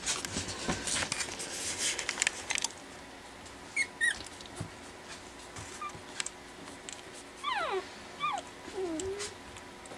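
Four-week-old Pekingese puppies wrestling on blankets. The first couple of seconds are scuffling and rustling, followed by a few short, high squeaks and, near the end, several falling whines.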